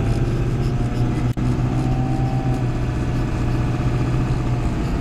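Steady road and engine noise inside a moving truck's cab, with a momentary cut-out about a second and a half in.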